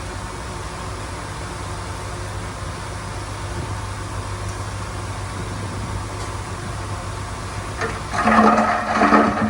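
Heavy diesel earth-moving machinery running with a steady rumble and low hum; about eight seconds in a much louder droning tone with several steady pitches cuts in.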